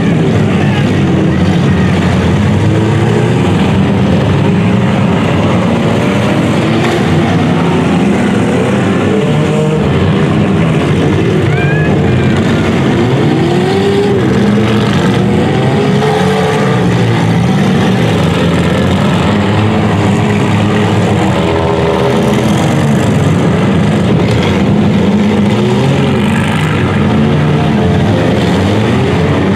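Engines of many compact demolition derby cars running and revving at once, pitches rising and falling as drivers accelerate, with the odd knock of cars colliding.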